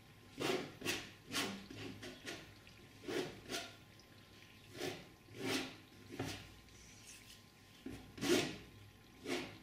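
Steel painting knife spreading oil paint across a stretched cotton canvas: a dozen or so short, irregularly spaced scraping strokes, laying down a thin first layer of paint.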